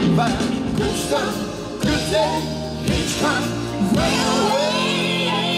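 Live rock band playing, with a male lead singer's voice over sustained organ chords.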